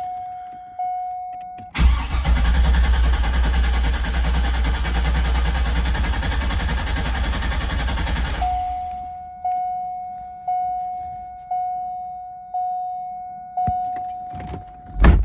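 C5 Corvette V8 cranking on the starter for about six and a half seconds without firing, its ignition and fuel fuses pulled, to build oil pressure after an oil cooler install. The car's warning chime repeats about once a second before and after the cranking, and there is a brief thump near the end.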